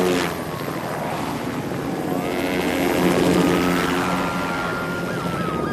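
Helicopter lifting off and climbing, its rotor and turbine running steadily, with a high whine that rises about two seconds in and then holds.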